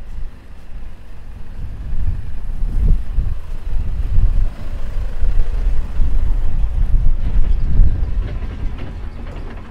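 Wind buffeting the camera microphone in gusts, a loud uneven low rumble that swells and dips.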